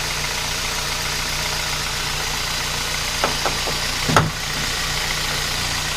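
2007 Kia Ceed 1.6 petrol engine idling steadily, its alternator drive belt freshly tightened and no longer squeaking. A few light clicks come just after three seconds, then a sharp knock about four seconds in.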